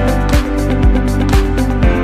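Background music with a steady beat: a drum hit about twice a second under held chords.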